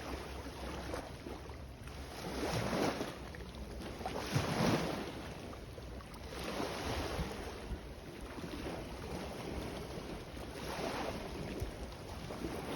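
Sea waves washing in, four surges a few seconds apart over a steady wash of water, with wind rumbling on the microphone.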